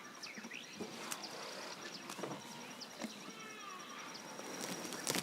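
Outdoor natural ambience: scattered bird chirps and calls over a steady high insect trill, with occasional faint clicks.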